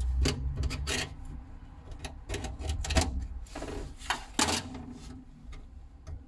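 Small tools clicking, tapping and scraping on an opened hard drive as it is taken apart, with a longer scraping rub about three and a half seconds in.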